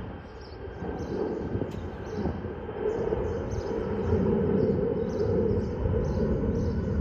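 Airbus A330 twin-engine airliner climbing overhead, its jet engines giving a steady low rumble that grows louder about halfway through. A high chirping repeats about three times a second above it.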